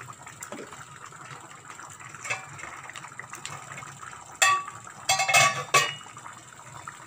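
Steel pots and lids clanking and clattering against each other and the stainless stove top. One loud ringing clank comes about four and a half seconds in, then a quick run of clanks a second later, over a steady background hiss.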